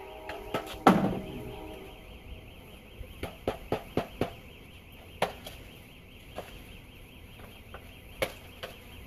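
Wooden beehive parts knocking and tapping as they are handled and set in place on the hive. One loud knock comes about a second in, followed by a series of lighter taps and clicks.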